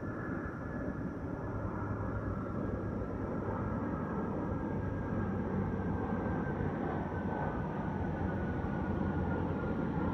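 Distant engine noise heard in the woods: a steady low rumble with a faint whine that slowly falls in pitch, growing a little louder.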